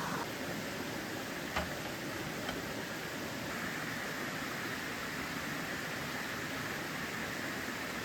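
Mountain stream water rushing steadily, with a sharp click about one and a half seconds in and a fainter one a second later.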